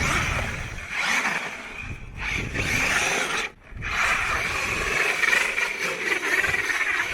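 Traxxas X-Maxx 8S RC monster truck spinning donuts in snow: its brushless electric motor whines at high revs, wavering in pitch, over the noise of the tyres churning snow. The whine drops out briefly twice.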